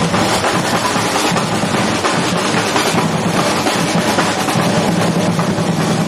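Carnival street percussion band playing: large surdo bass drums and snare drums beating a fast, dense, continuous rhythm.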